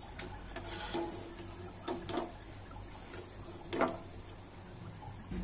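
Perforated metal slotted spoon scraping and clinking against a kadhai as fried pakoras are scooped out of the oil: about six light knocks, the loudest near four seconds in, over a faint frying background.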